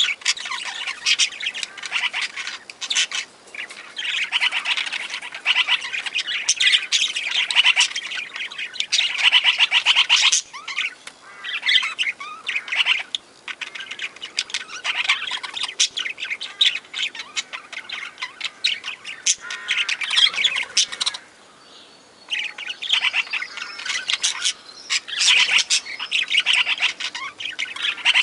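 A flock of aviary parakeets chattering, chirping and squawking in dense, rapid bursts, with a brief lull about three-quarters of the way through.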